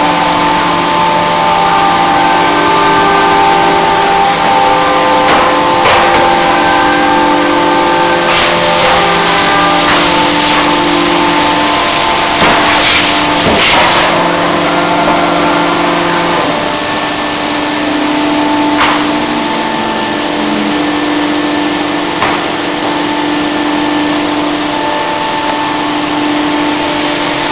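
CNC milling machine running: a steady rushing noise from the spindle, with several steady motor tones that shift in pitch every few seconds as the axes move, and a few sharp clicks midway.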